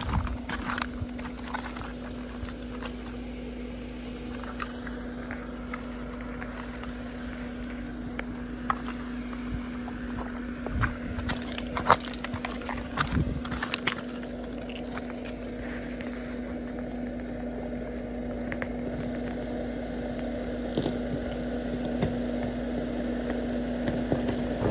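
Mahindra Scorpio N's 2.2-litre diesel engine running with a steady hum at a slow crawl, its tyres crunching and knocking over loose stones, growing louder near the end as the SUV approaches.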